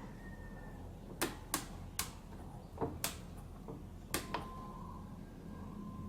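Universal electronic washing machine control board clicking: about seven sharp, irregular clicks over a low steady hum.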